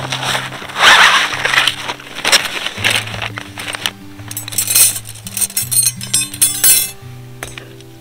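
Background music with a steady bass line, over metal clinking and rattling as the thin metal rods of a PaaGoWORKS Ninja Fire Stand Solo are handled and fitted together. There is a rustle about a second in, and a quick run of clinks from about the middle to near the end.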